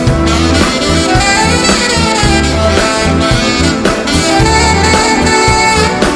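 Alto saxophone playing the lead melody over a live backing band with a steady beat.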